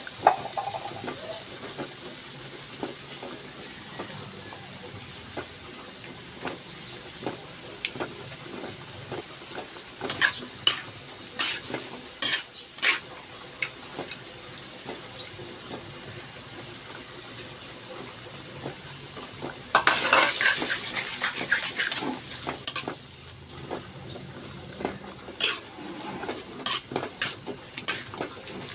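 Sliced bitter melon, tomato and onion frying in a metal wok with a steady sizzle, and a utensil scraping and clicking against the pan in scattered strokes. About twenty seconds in a louder sizzle flares for a couple of seconds as eggs go into the hot pan, and stirring clicks return near the end.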